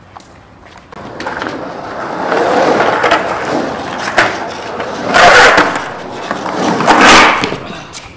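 Skateboard wheels rolling on the concrete of an empty swimming pool. The rolling starts about a second in and swells to its loudest twice, a little after five seconds and again around seven, with a sharp click around four seconds in.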